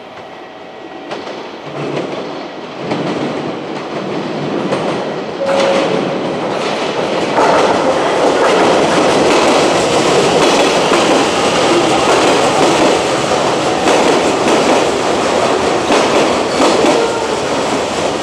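JR Kyushu electric multiple-unit train running into the station. It grows louder over the first several seconds, then settles into a steady loud rumble with wheels clacking over rail joints and points.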